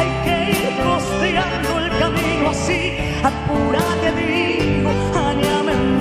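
A chamamé band playing live, with accordion over bass and drums, and cymbal strokes at intervals.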